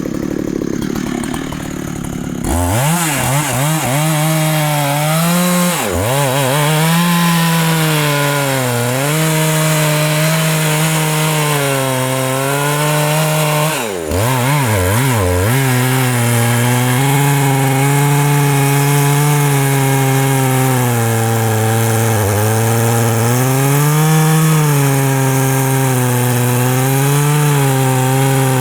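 Large Husqvarna two-stroke chainsaw coming up to full throttle about two and a half seconds in and cutting into a big rain tree trunk, its pitch sagging and recovering as the chain bites. Around the middle it drops briefly with a few quick throttle blips, then runs on steadily under load.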